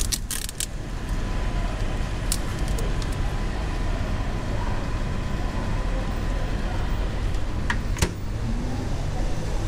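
Thin plastic film crackling as it is peeled back from a bento tray. About eight seconds in comes a sharp click of the microwave door at its handle. A steady low background rumble runs under both.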